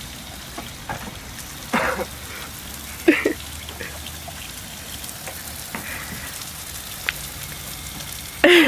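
Water running from a tap and spattering onto a hard surface, a steady hiss like light rain, broken by a few short pitched sounds, the loudest near the end.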